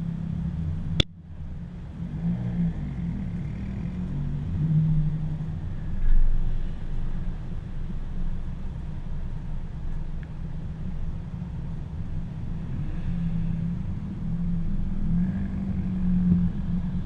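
Subaru cars cruising, their engine and exhaust rumbling under muffled wind buffeting on the microphone. A single sharp click comes about a second in.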